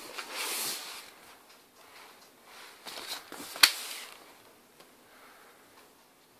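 Handling noise of a Lenovo ThinkPad T430 laptop being turned over by hand: a brushing, rubbing sound about half a second in, some rustling around three seconds, and a single sharp knock just after three and a half seconds, the loudest sound.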